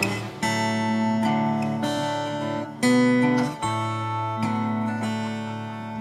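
Background music: acoustic guitar chords strummed and left to ring, a new chord every couple of seconds.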